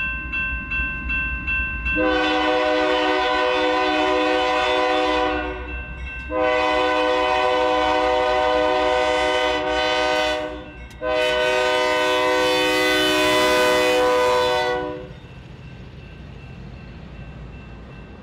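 GE AC44CW diesel locomotive's air horn blowing three long blasts, each a chord of several notes, with short breaks between. After the horn, the locomotive's engine and wheels rumble more quietly as it comes up and passes.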